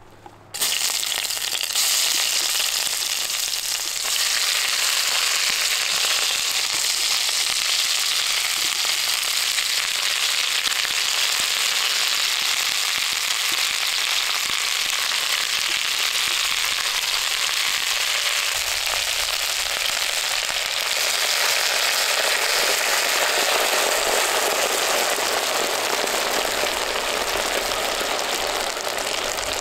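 Sliced onion rings frying in hot oil in a cast-iron Dutch oven, a steady sizzle that starts suddenly about half a second in as they hit the oil.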